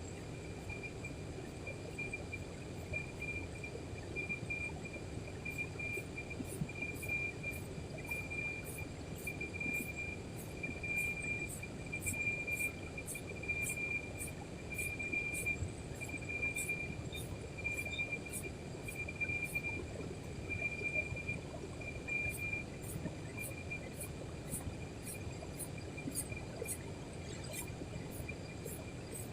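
Insects chirping: a steady pulsing trill with short high ticks repeating about twice a second, over a low, even background noise.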